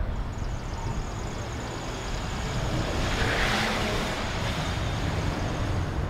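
A Ford Taurus sedan drives past close by. Its engine and tyre noise swell to a peak about three and a half seconds in, then ease off.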